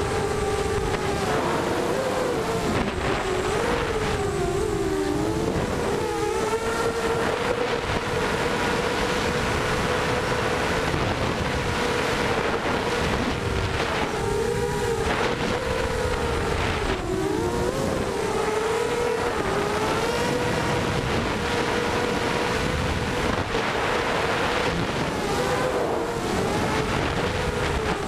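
Lumenier QAV250 racing quadcopter's brushless motors and propellers whining steadily at high speed. The pitch dips and climbs back now and then as the throttle changes, with wind noise over the onboard microphone.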